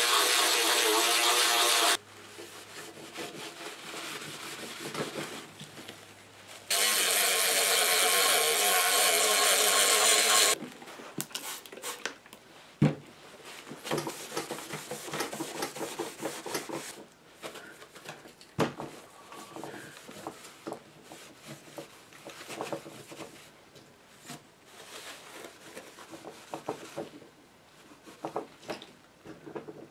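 A small battery-powered spin brush buzzing as it scrubs the Bakelite radio cabinet: it runs for about the first two seconds, stops, and runs again from about seven to ten seconds in. After that come quieter rubbing and scattered light knocks as a cloth wipes the cabinet down.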